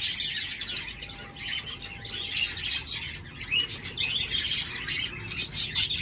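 Aviary of budgerigars and cockatiels chattering: many quick high chirps and warbles overlapping without a break, with a run of sharper rapid chirps near the end.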